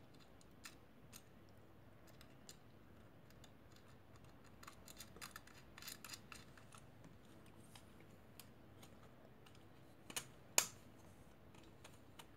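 Faint small clicks and ticks of metal screwdriver bits being pulled from and fitted into the shaft of a multi-bit screwdriver, a flurry of them in the middle and two sharper clicks a little after ten seconds.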